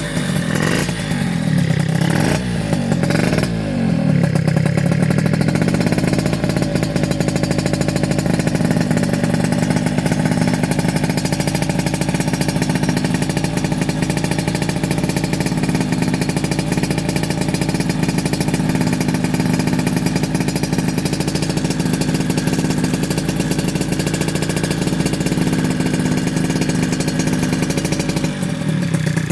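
Yamaha RZ50's 50cc two-stroke single, breathing through a BEET expansion chamber with a Mikuni flat-slide 24 mm carburettor, being free-revved while stationary. It starts with a few quick throttle blips, then the revs climb and hold steady for most of the time, dipping briefly near the end.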